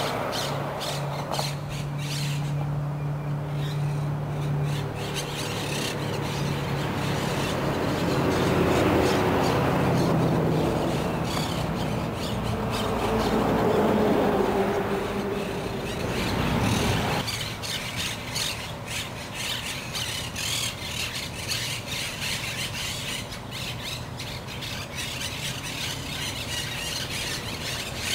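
Monk parakeets giving harsh, repeated squawks and squeals, with a steady low hum underneath through the first half.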